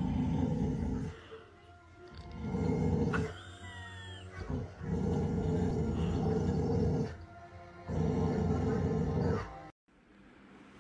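Dog growling in four long, low, rough bursts with short pauses between them; the sound cuts off abruptly near the end.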